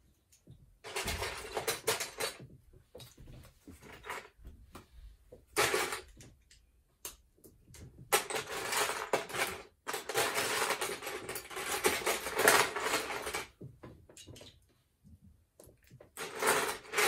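Loose Lego bricks clattering and rattling in a plastic storage tub as hands sift through them for pieces, in several bouts, the longest lasting about five seconds from around eight seconds in.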